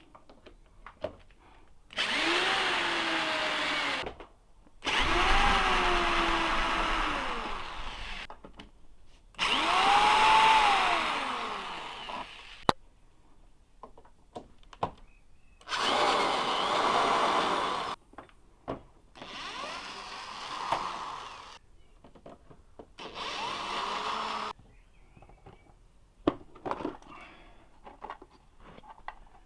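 Electric drill-driver running in six bursts of two to three seconds, each rising and falling in pitch as it backs out screws from the scooter's plastic panels, with small clicks and knocks in between.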